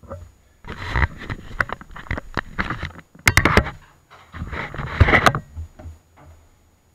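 Irregular knocks, clatters and scraping right at a small tricopter's onboard camera as the craft is jostled against a surface, with a cluster of sharp clicks about a third of the way in.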